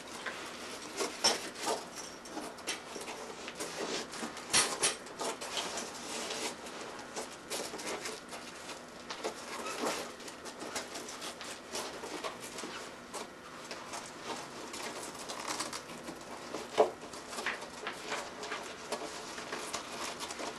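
Padded fabric frame cover being rubbed and tugged along a bicycle frame tube, with a rustling, scuffing sound and scattered small clicks from the frame parts and cables being handled. A few sharper clicks stand out, the loudest about two thirds of the way in.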